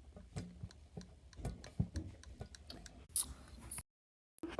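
Small irregular sticky clicks and pops of slime being squeezed and worked between the fingers, with a brief hiss about three seconds in. The sound cuts out completely for about half a second near the end.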